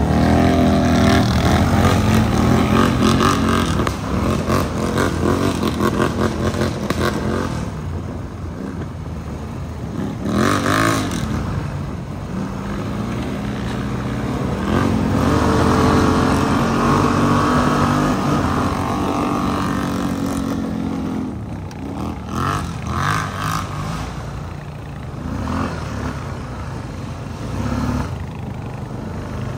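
ATV engines running and revving, the pitch rising and falling several times.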